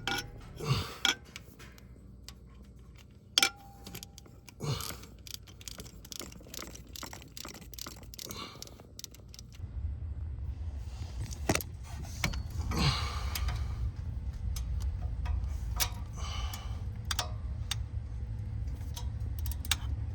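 Metal hand tools clinking and clicking on an engine, with a run of small rapid clicks. About halfway through a steady low hum comes in.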